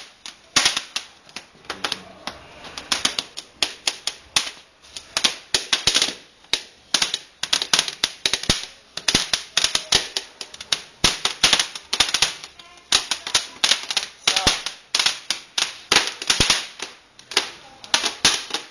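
Small firecrackers going off in a rapid, irregular string of sharp cracks, several a second, with short uneven pauses.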